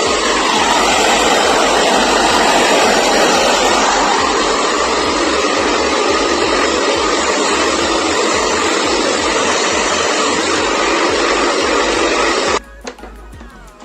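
Hot-air dryer blowing steadily, heating the adhesive tape behind a TV display panel to soften it. It cuts off suddenly near the end.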